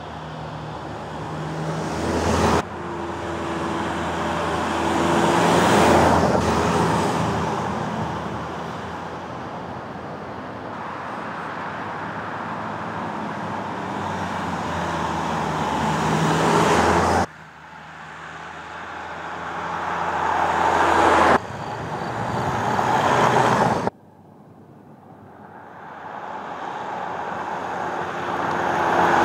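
Škoda Kodiaq SUV driving towards and past on tarmac, its engine and tyre noise swelling as it comes closer. The sound cuts off suddenly four times as one pass gives way to the next.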